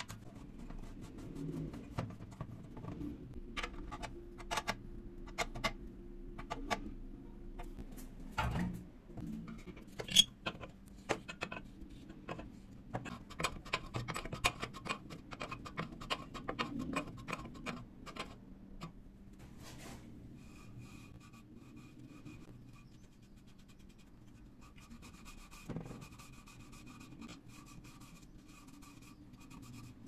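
Small clicks, taps and rubbing from hands working metal pipe fittings: thread-seal tape wound onto threaded fittings and a fitting tightened with an adjustable wrench. There is one sharper metallic knock about ten seconds in. The second half is quieter, with a faint steady hum.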